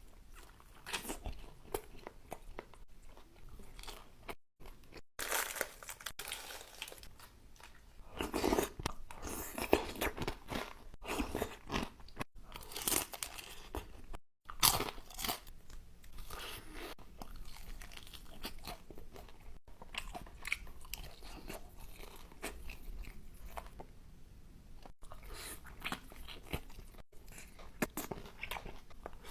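Close-miked crunchy biting and chewing of food: a string of crunches with short pauses, broken by several abrupt cuts to silence.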